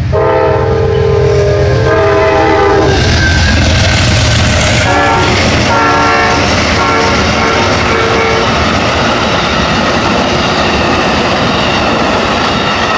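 Amtrak passenger train sounding its horn at a grade crossing: a long blast in the first three seconds, then more blasts a couple of seconds later, over the steady rumble and clatter of the train passing through the crossing.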